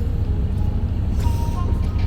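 Steady low rumble of a vehicle's engine and body, heard from inside the cabin.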